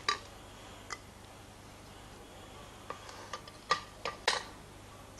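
Light, sharp metallic clicks and taps of small watchmaker's tools against an automatic watch movement while a screw holding the automatic work is taken out: about seven clicks at irregular intervals, most of them between three and four and a half seconds in.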